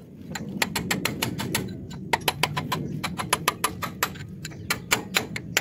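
Hammer blows on a steel chisel held against a track roller hub on a harvester's crawler undercarriage, working the roller's bearing loose. Rapid, fairly even metallic strikes, about five a second.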